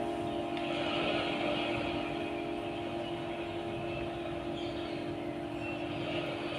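An engine running steadily, a constant hum with an even hiss above it.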